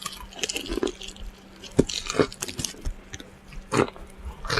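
A person chewing fried chicken close to the microphone, with irregular wet lip smacks and crunches a few times a second.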